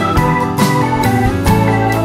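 Background music: sustained organ-like keyboard chords over a steady beat of about two strikes a second.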